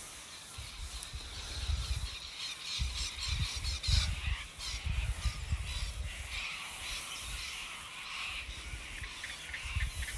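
Birds calling in the background over an uneven, low rumble on the microphone.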